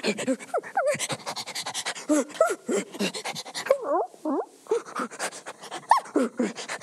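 A person imitating a dog: rapid, excited panting broken by short whimpers and yips that slide up and down in pitch.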